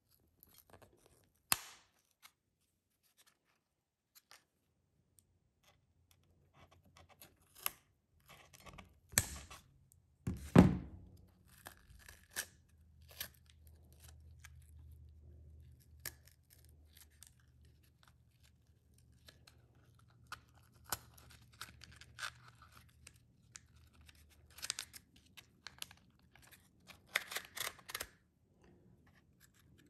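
Scissors snipping through a used oil filter's pleated paper media in a series of separate sharp cuts with pauses between them, the loudest about ten seconds in. Crackling and tearing come as the stiff, oil-soaked media is pulled apart by hand.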